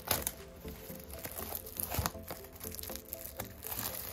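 Plastic shrink wrap crinkling in irregular crackles as it is peeled off a Steelbook case.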